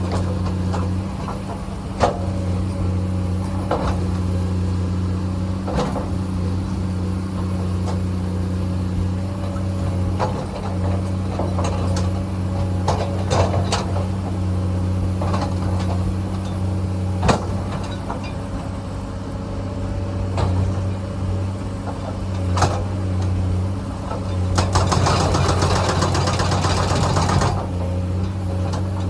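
Komatsu excavator's diesel engine running steadily, with scattered sharp knocks and clatters of rock against the machine. Near the end comes about three seconds of dense rattling.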